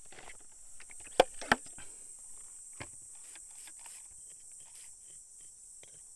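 A wooden stick poking and scraping through wet gravelly sand, giving scattered soft clicks and two sharp taps a little over a second in. A steady high insect chorus runs behind it.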